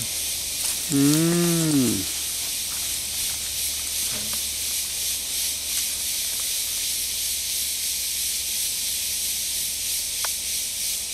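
A steady high-pitched hiss throughout. About a second in, a person makes one short drawn-out vocal sound that rises and falls in pitch, and there are a couple of faint clicks near the end.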